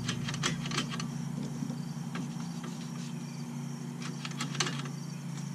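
Several sharp metallic clicks in the first second and one more about four and a half seconds in, as the trailer's electric drum brake hardware (magnet and arm on the backing plate) is handled, over a steady low machine hum.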